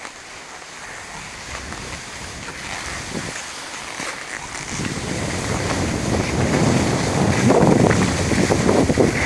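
Wind buffeting the microphone of a camera carried by a moving skier, mixed with the hiss of skis sliding over snow. It grows clearly louder from about halfway through.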